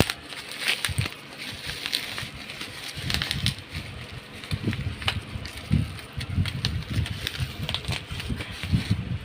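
A parcel's packaging being pulled and worked at by hand, crinkling, with scattered clicks and dull bumps as it resists opening.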